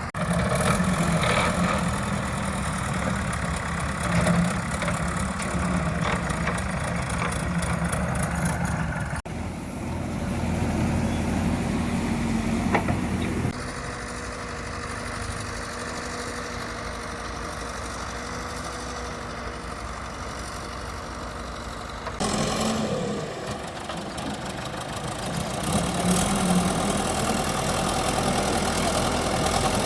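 JCB 3DX Super backhoe loader's diesel engine running under work. The sound shifts abruptly several times, with a quieter stretch in the middle where a steady whine sits over the engine.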